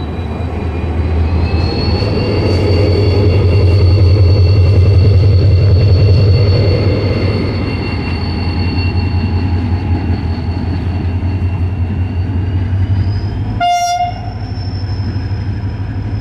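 Pakistan Railways HGMU-30R diesel-electric locomotive passing close while pushing the departing train: a deep engine hum with a steady high whine, loudest a few seconds in, then easing. A brief pitched tone sounds near the end.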